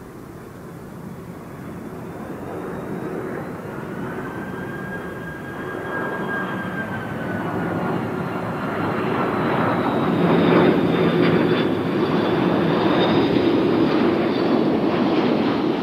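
Airbus KC-30A (A330-203 MRTT) tanker's twin turbofan engines on final approach to land. The jet noise grows louder as the aircraft comes in low, with a high engine whine that slides slowly down in pitch, and is loudest from about ten seconds in.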